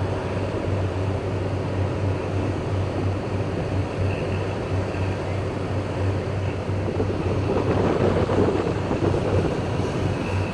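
Wind rushing over the microphone with a steady low hum beneath it, swelling to a stronger surge about eight seconds in.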